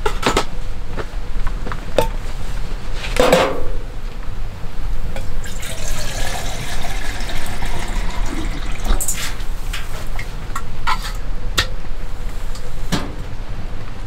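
Water splashing or being poured, with scattered knocks and clatters, over a steady low rumble.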